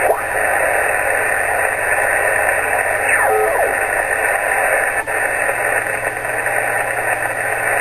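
Yaesu HF transceiver's speaker in USB mode putting out a steady rushing hiss of radio interference while it is tuned across the 20 m band and then the 17 m band. The noise masks any signals and makes HF operation impossible. A brief falling whistle comes about three seconds in, and a click about five seconds in as the band changes.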